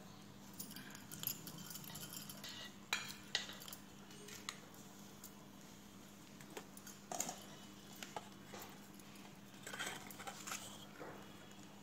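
Scattered faint clinks and scrapes of a spatula against a metal bowl and a ceramic plate as whipped cream is scooped onto a cake layer, a few sharper clinks standing out.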